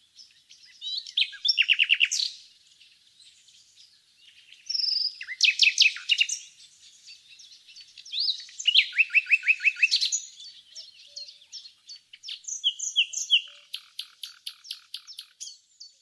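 Nightingale singing: four short, loud phrases separated by pauses, each a fast run of repeated notes mixed with whistles.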